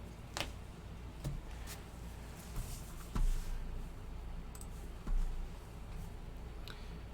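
Scattered light clicks and taps, about eight in all, with two heavier soft bumps about three and five seconds in.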